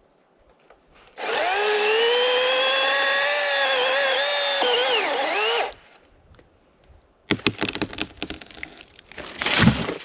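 Master Force 80-volt battery chainsaw whining steadily for about four seconds, its pitch sagging and wavering toward the end as the chain bogs in the cut, then stopping. About a second and a half later the trunk cracks in a quick run of snaps, building to a heavy crash near the end as the tree comes down.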